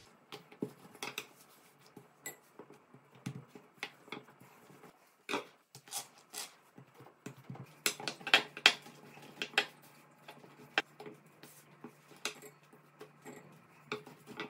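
A long wooden rolling pin rolling out dough rounds on a silicone mat over a worktop. It gives irregular sharp knocks and clacks as the pin meets the surface, loudest around the middle.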